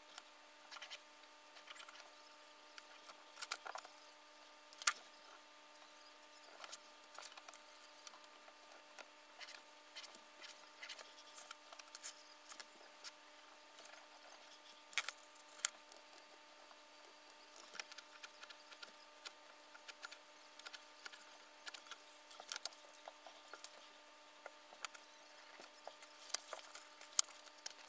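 Faint, irregular light taps, clicks and scrapes of a steel ruler, a marking pencil and leather being handled on a cutting mat, the sharpest about five seconds in and just before the end. A steady faint hum runs underneath.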